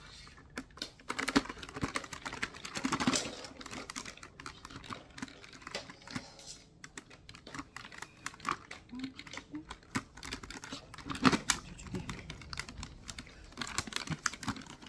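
Irregular small clicks and plastic knocks as a Dyson cordless vacuum's parts are fitted back together by hand.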